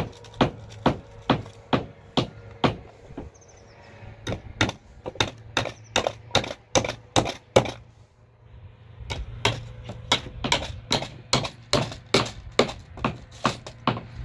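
Hatchet chopping into a wooden plank in quick repeated blows, about two to three a second, in three runs broken by short pauses about three and eight seconds in.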